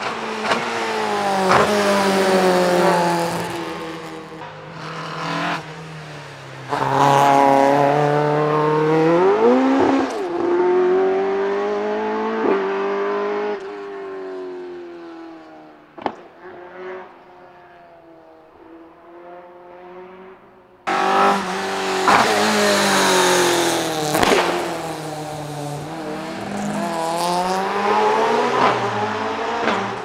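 Talbot Avenger rally car's four-cylinder engine driven hard through corners, revs rising and falling again and again. The sound jumps suddenly louder about seven seconds in and again around twenty-one seconds in.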